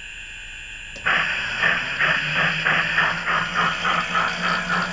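A Phoenix sound system plays steam-locomotive chuffs through its speaker, starting about a second in as the speed control is turned up. The chuffs come as a quick, even rhythm. Under them is the steady low hum of the electric drive motor running.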